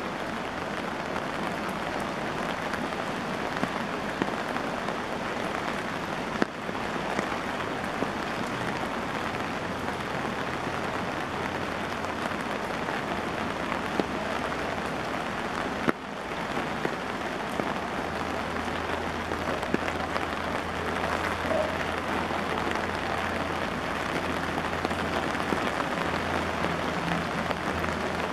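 Heavy rain falling steadily on pavement and surrounding surfaces, an even hiss with scattered drip ticks. A low steady hum comes in about two-thirds of the way through.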